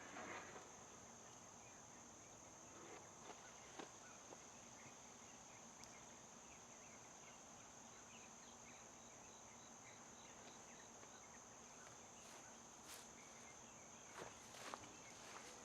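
Near silence: faint room tone with a steady high-pitched whine and a few soft clicks, the loudest near the end.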